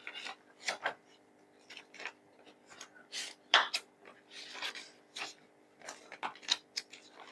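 Paper pages of a children's workbook being flipped and turned by hand: a string of irregular crisp rustles and flaps.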